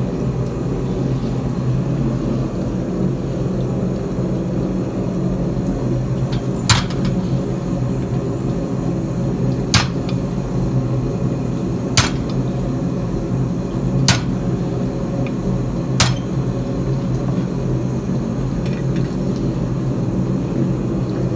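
Five sharp metallic strikes, roughly two to three seconds apart, as a heavy hammer ram drives a handled chisel into hot square steel bar to cut notches. A steady low hum of shop machinery runs underneath.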